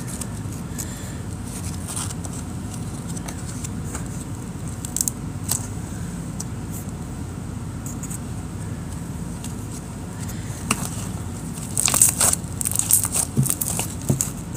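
Jelly cube slime (slime with cut magic-eraser sponge cubes) being handled and mixed: scattered faint clicks, then about twelve seconds in a dense run of crackling clicks and pops. A steady low hum runs underneath.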